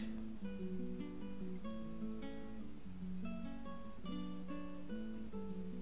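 Quiet background music: a steady run of plucked notes with a lower repeating line beneath.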